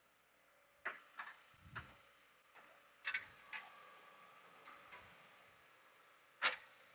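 A scattered series of light clicks and knocks, about nine in all, with the loudest near the end, from parts and tools being handled.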